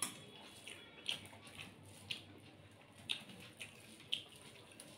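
A person eating rice and egg curry by hand: faint, short wet clicks of chewing and of fingers working the rice in a steel plate, about seven in all at an uneven pace.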